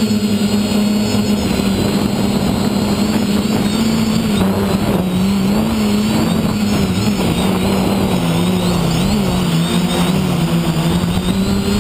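Electric motors and propellers of an FPV quadcopter, heard through its onboard camera: a steady hum whose pitch wavers up and down with throttle changes from about four seconds in, over a rush of wind noise.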